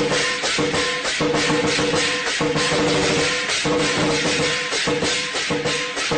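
Background music with a fast, steady beat and a short repeating melody.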